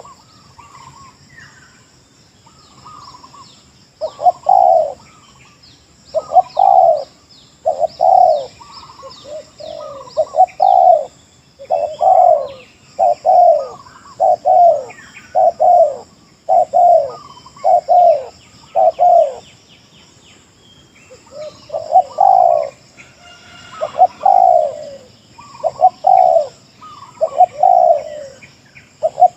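Spotted doves cooing in repeated phrases, quiet for the first few seconds and then loud and steady, with faint chirps of small birds higher up.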